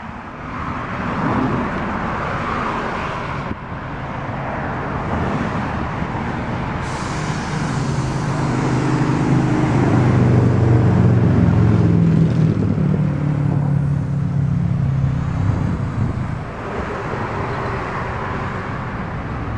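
Passing road traffic, with a heavier vehicle going by that swells in and fades away, loudest about ten to twelve seconds in.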